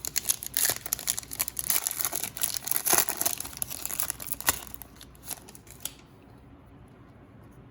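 Plastic foil wrapper of a trading-card pack being torn open and crinkled by hand, a dense run of crackles and rips with a few sharper snaps, stopping about six seconds in.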